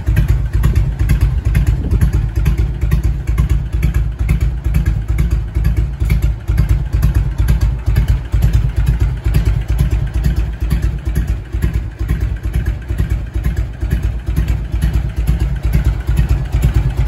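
Harley-Davidson FLSTS Heritage Springer's 1340 cc Evolution V-twin engine running steadily, with an even, lumpy pulse and no revving.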